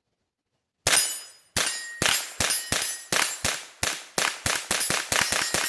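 AR-15 rifle with a CMMG .22 LR conversion bolt firing .22 LR rounds in rapid semi-automatic fire. It starts about a second in and quickens to about four or five shots a second.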